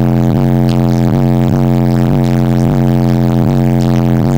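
Loud bass from a car subwoofer: one steady low tone with many overtones, pulsing a few times a second.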